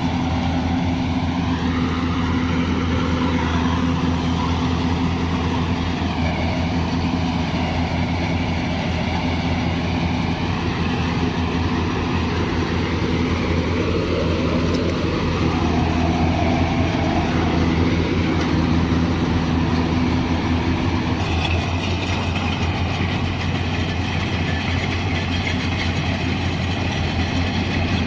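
Yanmar AW70GV rice combine harvester's diesel engine running steadily with a constant hum, its sound changing about three quarters of the way through.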